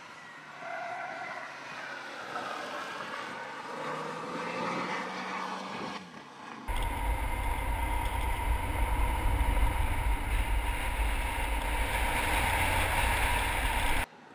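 Renault Clio RS 200's turbocharged four-cylinder engine, its pitch rising as the car accelerates along the track. About six and a half seconds in it switches to loud wind buffeting and road rumble on a camera close to the front wheel, with the engine underneath, which cuts off suddenly near the end.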